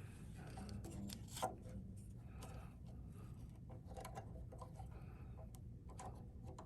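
A small clamp being fitted and tightened on a guitar headstock: faint clicks and rubbing of metal and wood, with one sharper click about a second and a half in.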